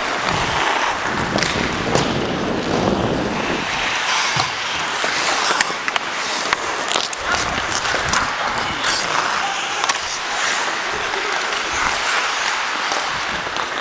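Ice hockey skate blades scraping and carving on rink ice close by, with scattered sharp clicks and knocks of sticks and puck.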